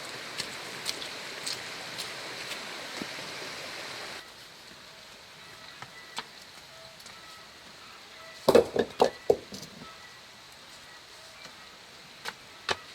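Steady rush of running water with a few light ticks, cutting off about four seconds in; then a quick run of five or six loud knocks about halfway through, and a couple of single knocks near the end.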